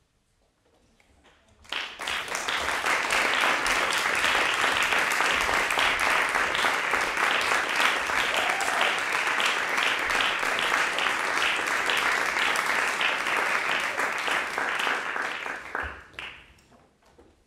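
Audience applauding, starting sharply about two seconds in, holding steady, then dying away near the end.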